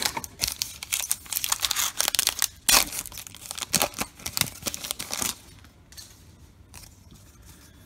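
Foil wrapper of a 2021 Topps Allen & Ginter baseball card pack crinkling and tearing open: a dense crackle with one sharp rip a little under three seconds in. After about five seconds it drops to faint rustles.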